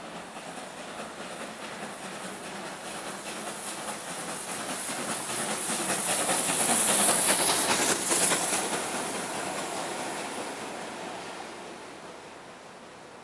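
GWR Hall class 4-6-0 steam locomotive passing with its train of coaches. The sound builds to its loudest about seven to eight seconds in, with a high steam hiss and the clatter of wheels on the rails, then fades as the coaches roll by.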